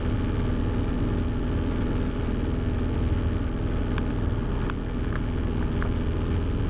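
Cessna 172M's four-cylinder engine droning steadily in cruise, heard through the headset intercom, with a few faint clicks about four to six seconds in.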